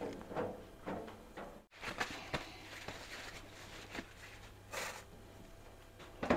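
Light knocks and clinks of bowls and containers being handled on a kitchen counter, with a short rustle a little before the end.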